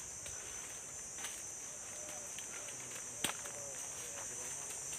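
A steady, high-pitched chorus of insects droning across the orchard. A single sharp knock comes about three seconds in.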